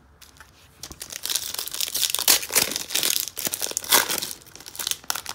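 Foil wrapper of a 2018 Optic football trading-card pack being torn open and crinkled by hand, starting about a second in.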